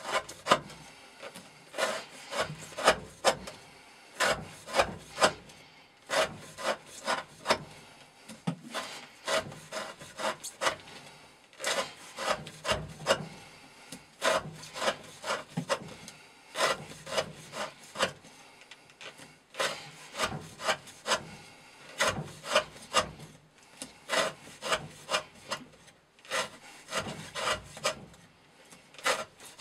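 Chris Reeve Sebenza 21 folding knife's S35VN steel blade shaving curls off a softwood stick, in repeated short scraping strokes about one or two a second.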